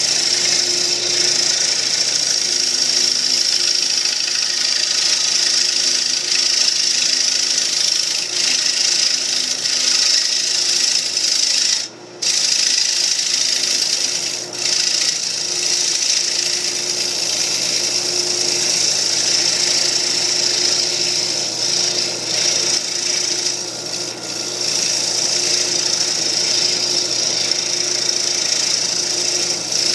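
A wood lathe turning a mahogany bowl while a tool or abrasive works the wood: a steady hiss over a constant hum, with a brief drop about twelve seconds in.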